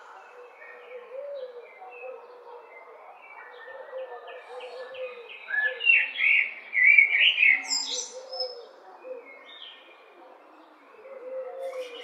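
Common blackbird singing: a few seconds of quieter, scattered notes, then loud whistled phrases from about six to eight seconds in, with another phrase starting near the end. A low, repeated note sits underneath throughout.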